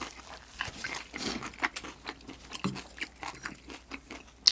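Close-miked chewing: scattered wet mouth clicks and smacks of food being eaten, with one sharp click near the end.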